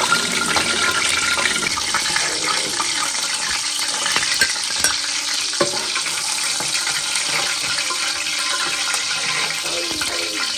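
Hot oil sizzling steadily in a wok where pieces of boiled chicken are deep-frying, with a few clicks.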